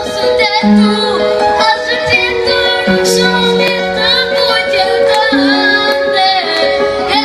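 A song: a young singer's voice holding notes with vibrato over instrumental accompaniment of sustained chords and a bass line.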